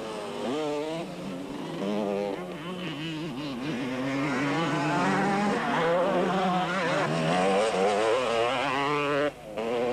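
Motocross motorcycle engines revving hard, the pitch repeatedly rising and falling with the throttle as the bikes race over the dirt track. The sound dips away briefly just before the end.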